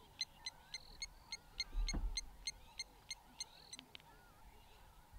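A bird calling in a fast, even run of short, sharp notes, about four a second, which stops a little over halfway through, with fainter twittering of other birds beneath it. A dull low thump comes about two seconds in.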